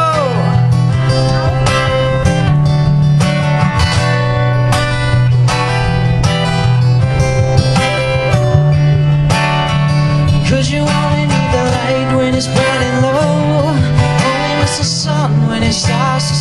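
Acoustic guitar playing an instrumental break in a folk song, picked melody notes over a steady low bass line.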